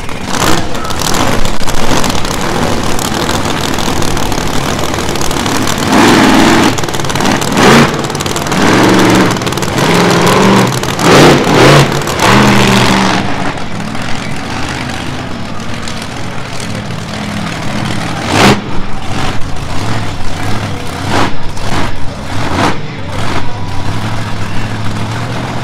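Monster truck engine revving loudly in repeated bursts of throttle, its pitch rising and falling.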